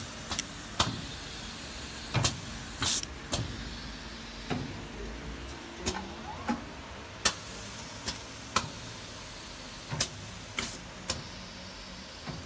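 Automatic fiber laser marking machine cycling, its pneumatic fixtures and rotary table at work: irregular sharp clacks, two short air hisses, over a steady machine hum.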